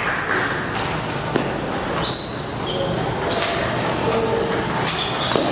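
Table tennis play in a large hall: a few sharp clicks of the ball over a steady wash of background chatter, with brief high squeaks.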